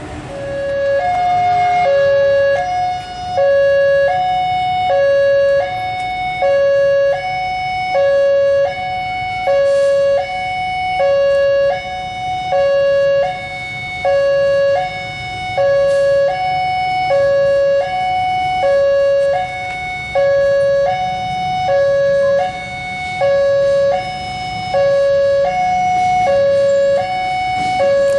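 Railway level-crossing warning alarm sounding a two-note chime, a low note and a higher note taking turns about every one and a half seconds. The low rumble of an approaching diesel locomotive runs underneath.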